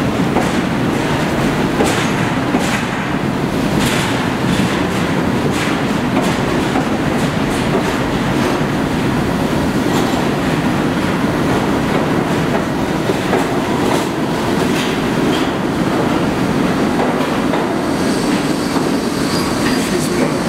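NYC subway garbage work train of R58 flatcars and R32 cars rolling past a station platform: a steady loud rumble with repeated clacking of wheels over rail joints.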